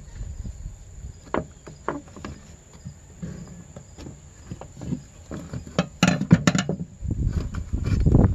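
Screwdriver tip clicking and scraping against the plastic wiring plug of a fuel pump as it is pried loose, with a quick run of sharper clicks about six seconds in. From about seven seconds a low rumbling handling noise takes over.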